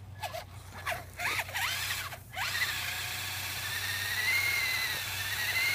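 Electric motor and drivetrain of a battery-powered RC monster truck: a few short whirs, then from about two and a half seconds in a steady high whine at full throttle as the wheels spin in loose sand, throwing up dust.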